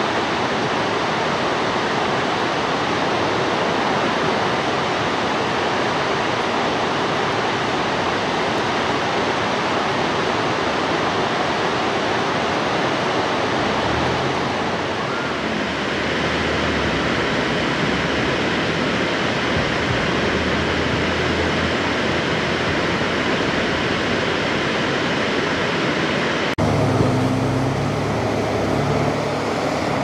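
Steady rush of falling water from Cullasaja Falls, a 200 ft cascade. A low rumble joins about halfway through. Near the end the sound cuts suddenly to the road noise of a moving car.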